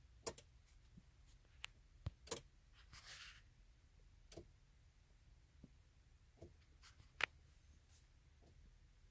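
Near silence broken by about six irregular sharp clicks, the loudest about seven seconds in, and a brief soft hiss around three seconds in.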